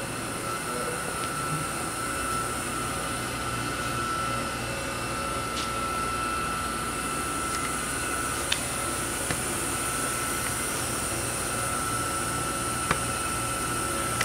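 Haas VF-5 vertical machining center running its spindle at about 2000 RPM, giving a steady high whine over a low hum, with a couple of short clicks.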